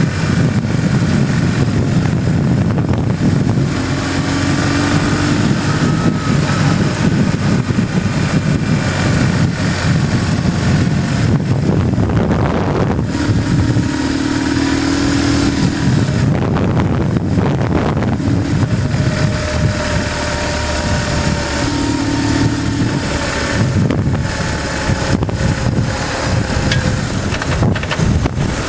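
BMW GS motorcycle engine running under way along a winding road, with heavy wind and road noise. The engine note rises and falls a few times with the throttle.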